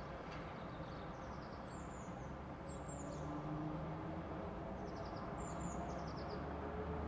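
Small birds chirping in several short runs of quick falling notes, over a steady low outdoor rumble.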